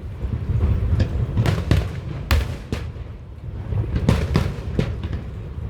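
Fireworks display: a rapid, irregular series of sharp bangs and cracks, several a second at times, over a continuous low rumble of booms.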